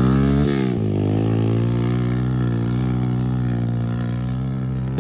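Modified 110 cc pit bike's single-cylinder four-stroke engine running at steady revs, with a brief dip and recovery in engine speed about half a second in.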